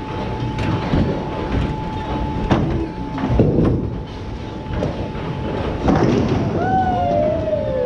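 Bowling ball dropped onto the wooden lane about three and a half seconds in, rolling down it with a low rumble and striking the last standing pin for a spare about six seconds in, over the steady rumble and clatter of balls and pins on neighbouring lanes.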